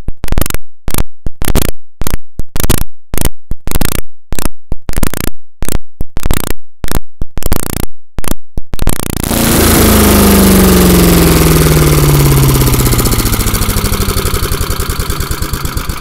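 Craftsman wood chipper's Tecumseh single-cylinder engine running close by, just after a cold start on full choke. For the first nine seconds the sound chops in and out several times a second. It then runs steadily and its pitch falls over a few seconds as the speed lever is moved toward slow.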